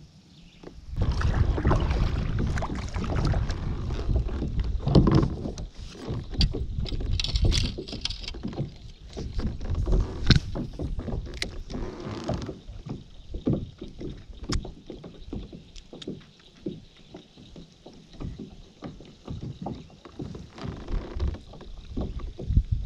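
A small fishing boat being moved and handled on the water: water sounds and scattered knocks against the hull over a low rumble, loudest for the first dozen seconds and then quieter.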